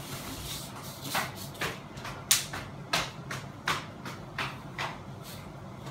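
Sharp clicks and scrapes, about ten of them at irregular intervals with the loudest a little past two seconds in, from hand work on a Fanimation Benito ceiling fan's centre housing during installation.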